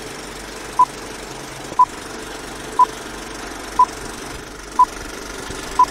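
Film countdown leader sound effect: six short, single-pitch beeps, one each second, over the steady whirring rattle of a film projector.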